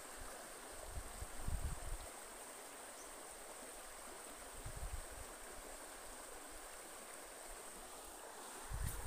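Quiet river ambience: a steady hiss of flowing water, with a few low bumps of wind on the microphone about a second and a half in, around five seconds in and near the end.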